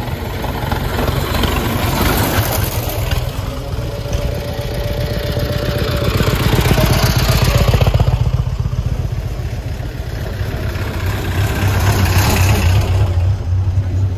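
Engines of vintage sports cars running as the cars drive one after another up a gravel track past the microphone. The deep engine beat swells and eases several times as each car comes by, loudest a little past halfway.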